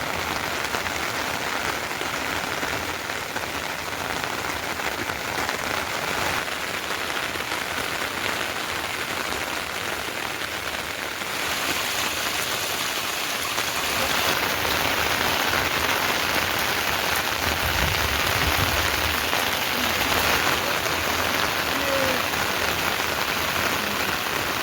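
Steady heavy rain falling and pattering on surfaces, growing a little louder partway through.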